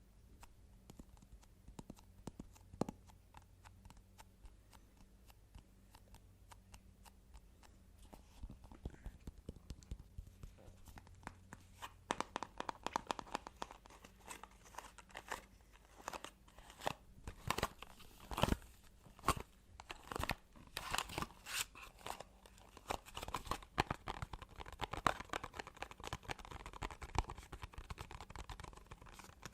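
Close-miked ASMR tapping and handling of objects: scattered light taps at first, turning into a busy run of quick taps and rustling about twelve seconds in.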